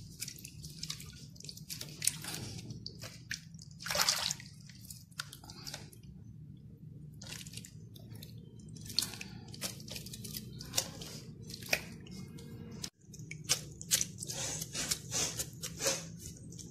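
A hand sloshing and squeezing in a bowl of buttermilk and ice-cold water, gathering freshly churned butter into a lump: irregular wet squelches, splashes and drips over a steady low hum.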